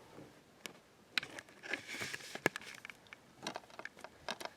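Faint scattered clicks, taps and rustling from a plastic DVD case being handled.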